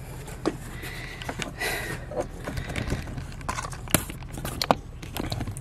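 Hand ratchet pipe threader's die head being turned on black iron pipe: irregular metal clicks and short scraping sounds, with the sharpest clicks about four seconds in.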